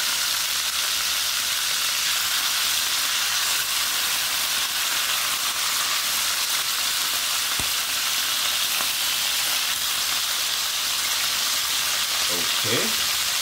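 Seasoned chicken pieces frying in hot oil in a nonstick frying pan: a steady sizzle, being browned for brown stew chicken. One small click sounds a little past the middle.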